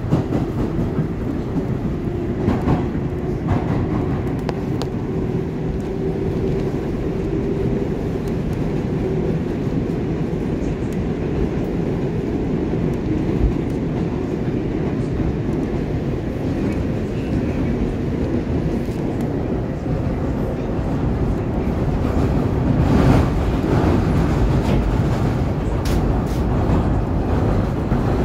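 R142A subway train running along the track, a steady rumble of wheels on rail with scattered clicks over the rail joints, heard from on board. A faint steady tone sits over the rumble for the first several seconds, and the run gets a little louder in the last few seconds.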